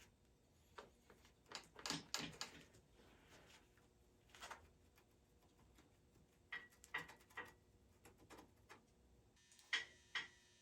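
Faint, scattered clicks and knocks of tools and metal parts being handled during motorcycle disassembly, a few of them with a short metallic ring.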